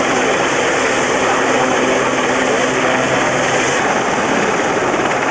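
Westland Sea King helicopter hovering low close by, its rotor and turbine engines making a loud, steady noise.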